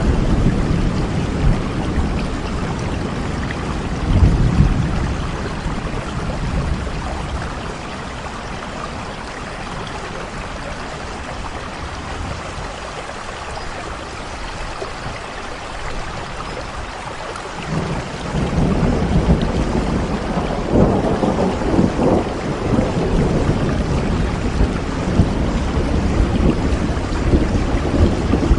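Steady rain falling, with low rumbles of thunder: a short one about four seconds in, then a louder rolling rumble that builds from about two thirds of the way through and carries on to the end.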